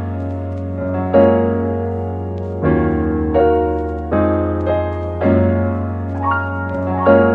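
Background piano music: chords struck about once a second and left to ring and fade.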